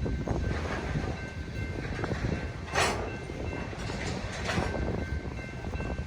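Freight train cars rolling past with a steady rumble and the clatter and clicks of wheels over the rails, under a faint steady high tone. One louder clank comes nearly three seconds in.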